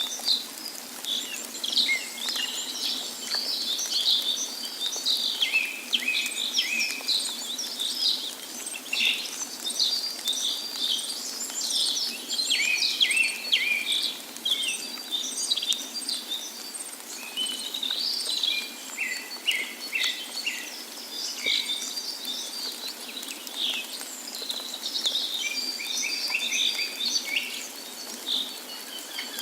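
Many songbirds chirping and singing at once, short overlapping calls and trills following one another without a break, over a faint steady background hiss.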